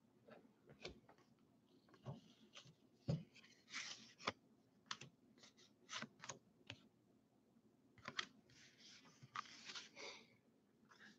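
Faint handling of a stack of Topps Heritage baseball cards: cards slide and flick one behind another, making a run of soft irregular clicks with short rustles of card stock between them.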